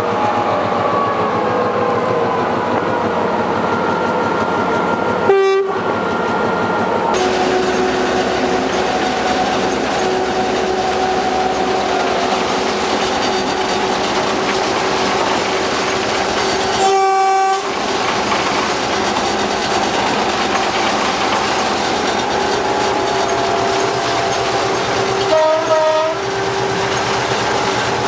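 Diesel locomotive running under way, heard from on board, its engine note falling over the first few seconds. The horn sounds three short blasts, about five seconds in, around seventeen seconds and near the end.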